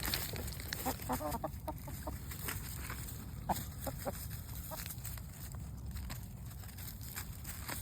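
Chickens clucking in short, scattered calls as they feed on lettuce.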